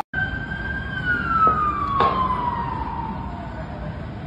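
Emergency-vehicle siren in one long, slowly falling wail over a steady low rumble, with a sharp click about two seconds in.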